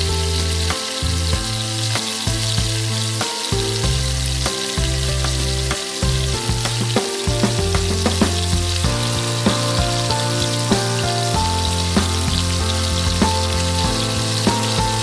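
Chicken pieces in a tomato and chickpea sauce sizzling and spattering in a nonstick frying pan, with a spatula turning the pieces about halfway through. Background music plays over the sizzling.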